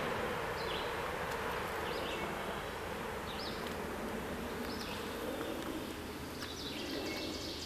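Outdoor ambience beside a wooded stream: a steady hiss with short high chirps repeating about every second and a half, growing busier near the end.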